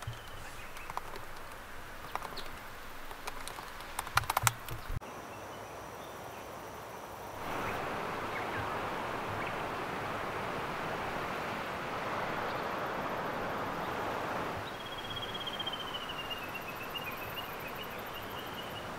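Scattered clicks of fingers tapping a laptop keyboard, then river water running steadily, then a bird singing a high, wavering call near the end.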